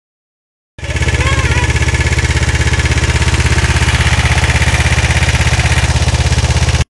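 Kawasaki GPZ 500S parallel-twin engine running at a steady speed, a rapid, even exhaust pulse setting in about a second in. It breaks off for a moment at the very end.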